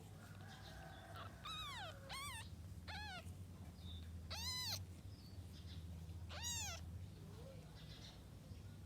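A cat meowing about five times in short, rising-and-falling calls, the loudest about halfway through.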